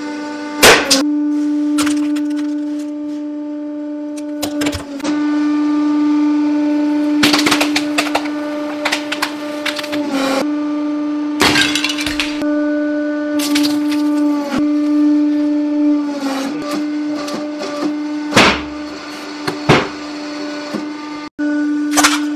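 A 150-ton hydraulic press's pump running with a steady pitched hum, broken several times by loud sharp cracks and pops as objects give way under the ram. The loudest crack comes about a second in.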